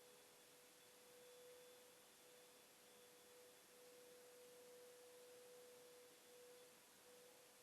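Near silence: a faint hiss with a faint steady tone held throughout.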